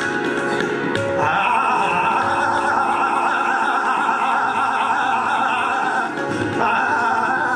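Hindustani classical vocal music: a male singer singing a raga over sustained instrumental accompaniment with a steady drone beneath.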